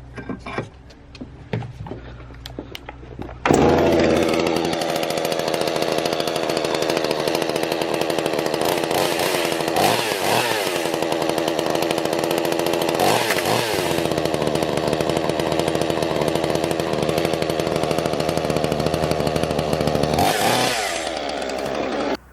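Chainsaw running at full speed, cutting through an iPhone 7. It starts suddenly after a few knocks, its pitch dips briefly twice as the chain bites, and it winds down near the end.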